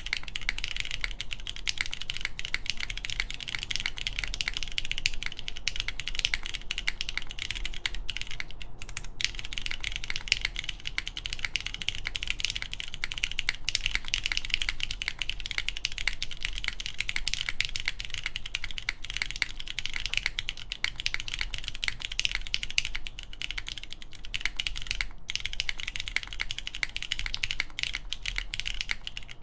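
Continuous typing on a SINGAKBD Kohaku mechanical keyboard with a polycarbonate case, full aluminum plate, lubed Cherry MX Brown switches and GMK keycaps. The keystrokes form a dense, steady stream, with two very short gaps, about nine seconds in and about twenty-five seconds in.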